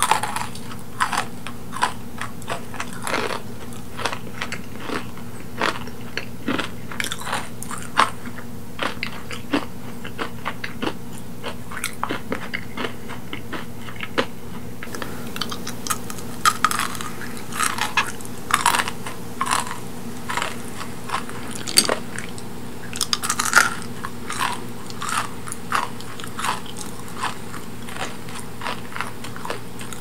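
Chewing kohakutou (crystal jelly candy): many irregular crisp crunches of the sugar crust with wet mouth sounds.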